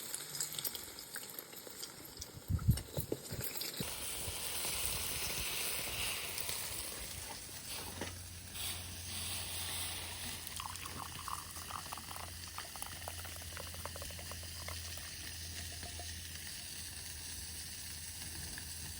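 Ground meat sizzling in a frying pan: a steady hiss with scattered crackles. The hiss sets in abruptly about four seconds in, after a few knocks.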